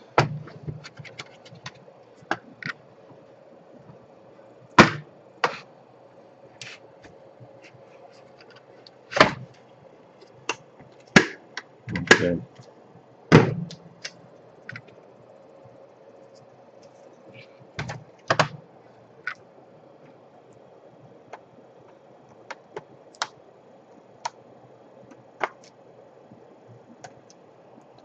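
Plastic knocks, clicks and thumps from a laptop's case and keyboard being handled, turned over and pressed on. There is a cluster of louder thumps in the first half, then lighter scattered taps and clicks.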